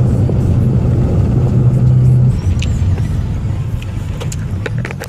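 Volkswagen Jetta driving, heard from inside the cabin: a steady low engine and road drone that eases off about two seconds in. A few light clicks follow near the end.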